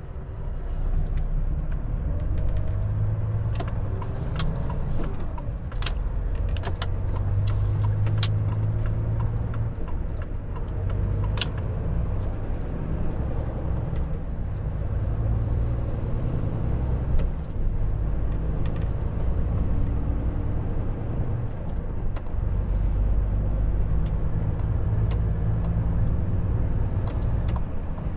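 Volvo FH 460 truck's 13-litre inline-six diesel engine running, a steady low drone heard from on board while driving, with scattered sharp clicks and knocks and one louder knock about 17 seconds in.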